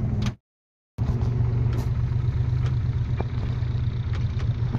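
Tractor engine running steadily with a low rumble. The sound cuts out completely for about half a second near the start, then returns unchanged.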